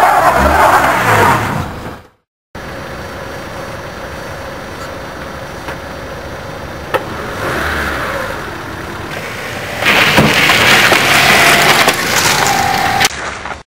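Honda Civic engine revving as the car pulls away on icy snow, with the hiss of its tyres slipping on the ice. A loud stretch at the start cuts off about two seconds in. The engine then runs more quietly, and from about ten seconds in comes another loud burst with a rising engine note.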